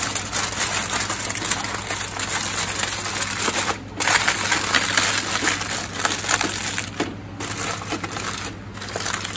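Aluminium foil crinkling and crackling as it is folded and crimped shut into a parcel, with a few short breaks.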